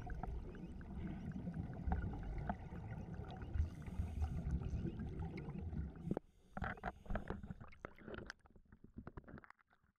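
Muffled underwater rumble of scuba divers' exhaled regulator bubbles and water moving over the camera, with scattered clicks. About six seconds in it gives way suddenly to sparse splashing and lapping water as the camera breaks the surface, then it cuts off.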